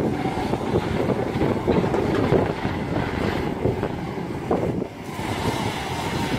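Kobelco SK210LC-10 long-reach excavator's diesel engine running as the machine swings and lowers its long arm, under heavy wind buffeting on the microphone.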